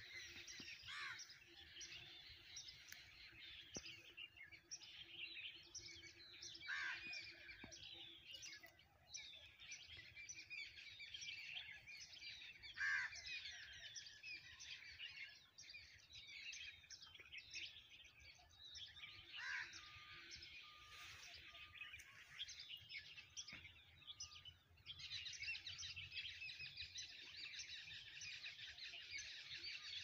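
A faint chorus of many small birds chirping and singing over one another, with no single song standing out. The chorus grows thicker and busier for the last few seconds.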